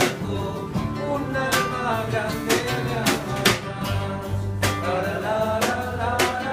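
A live band playing an instrumental passage between sung lines: guitars carrying a melody over a bass line, with sharp drum hits about once a second.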